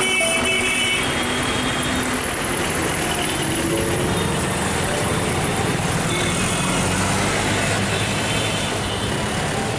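Steady street noise of a crowded market, a mix of traffic and running vehicle engines.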